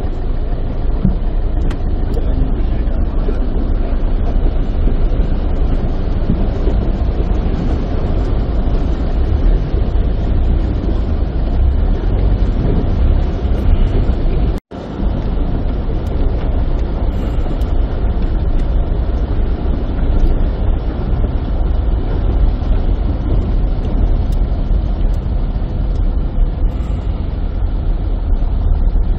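Steady low rumbling street noise on a flooded road, cut off for a split second about halfway through.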